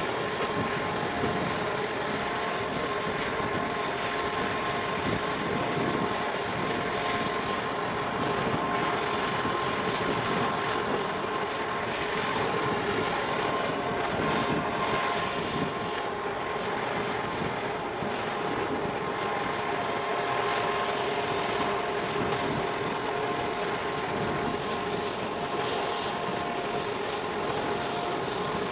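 Steady machinery drone: an even rushing noise with several constant humming tones that never rise or fall.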